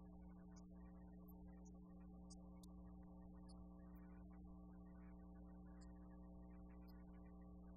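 Near silence with a steady electrical hum, an unchanging buzz that holds throughout.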